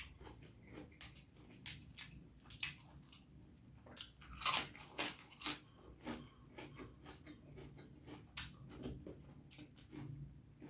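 A person chewing and biting a mouthful of spicy beef curry and rice, with irregular mouth clicks, loudest a little past the middle.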